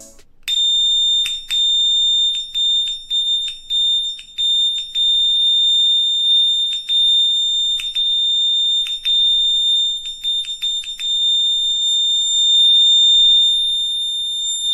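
Buzzer of a homemade doorbell built from a broken multimeter, giving a steady high-pitched beep. It comes on about half a second in and is cut by many short breaks at uneven intervals, then sounds unbroken for the last few seconds.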